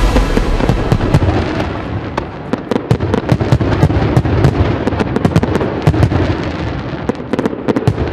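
Fireworks going off: low booms mixed with many sharp crackles, growing fainter near the end.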